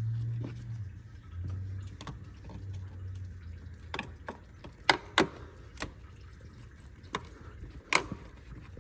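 Hose being worked free in a truck's engine bay: a low hum through the first few seconds, then a series of sharp clicks and knocks roughly a second apart.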